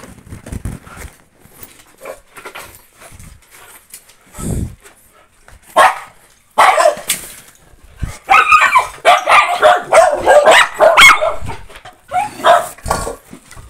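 A dog barking repeatedly: a few calls about six seconds in, then a rapid run of loud barks and yelps for several seconds.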